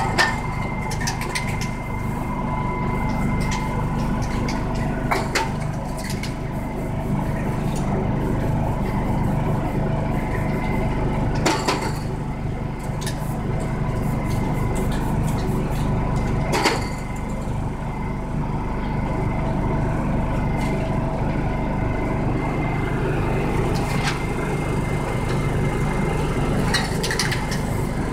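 Steady low hum of street noise, with several sharp knocks and clicks from spray cans and tools handled on a spray-paint artist's work table.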